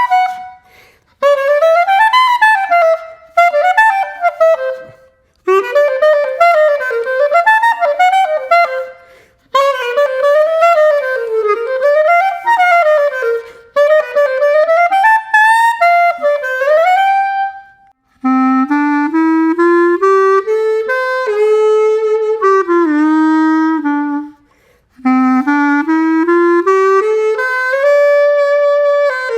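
Cheap plastic clarinet played solo on its stock mouthpiece and reed: phrases of quick up-and-down runs high on the instrument, then, from about 18 seconds in, slower step-by-step scales lower down, with short breaks for breath between phrases. The tone is thin and squeaky, which the player blames on the stock mouthpiece and reed.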